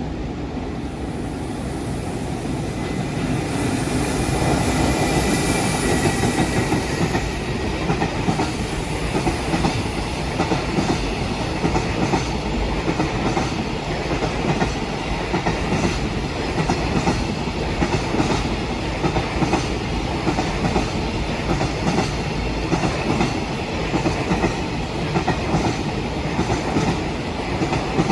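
Electric-locomotive-hauled container freight train passing at speed. It grows louder over the first few seconds, then long lines of wagons clatter past with a steady, repeating clickety-clack of wheels over rail joints.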